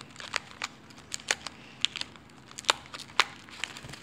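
Irregular sharp clicks and light crinkling from small plastic objects being handled close to the microphone, a dozen or so uneven taps with no steady rhythm.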